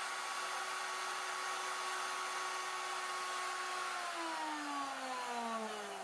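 Plunge router with a 3/8-inch straight bit running at a steady high speed, then switched off about four seconds in, its pitch falling steadily as the motor winds down.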